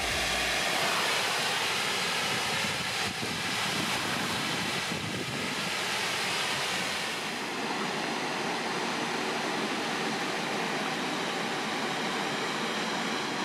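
Waterfall rushing, a steady roar of falling water, with lake water washing at its foot. About seven seconds in, the hiss softens.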